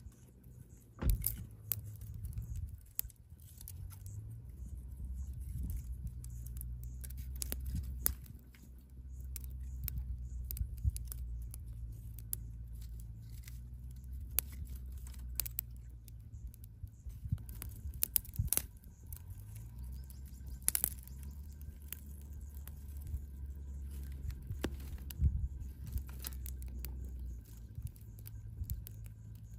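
A low steady rumble with many scattered sharp clicks and taps, a few of them louder, about a second in and around the middle.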